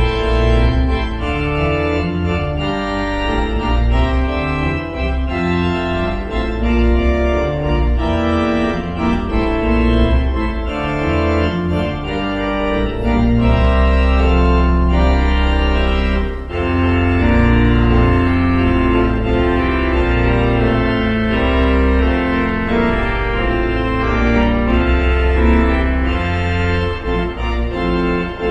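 Organ music: slow, sustained chords over held bass notes, changing every second or two.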